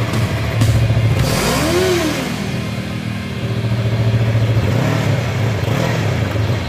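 Yamaha R3's 321 cc parallel-twin engine idling through its exhaust, with two throttle blips: a stronger rev that rises and falls about a second and a half in, and a smaller one about five seconds in.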